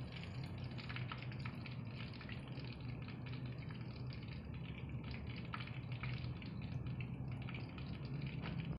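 Battered fish pieces deep-frying in hot oil in a karahi: steady sizzling dotted with many small crackles and pops, over a steady low hum.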